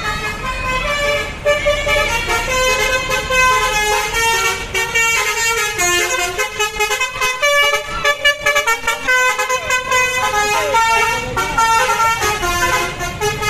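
A bus's Basuri telolet musical horn playing a melody, its notes stepping quickly from one pitch to the next without a break.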